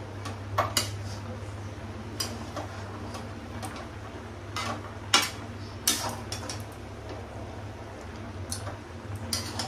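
A metal spoon or spatula stirring vegetables in a kadai, knocking and scraping against the pan at irregular moments, loudest about five and six seconds in, over a steady low hum.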